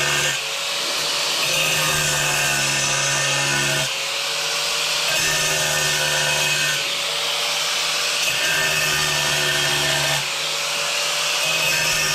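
Angle grinder running with its disc cutting into a ceramic tile, a steady motor whine over a gritty grinding hiss. The tone shifts every few seconds as the disc bites and eases while it is worked round the circular cut.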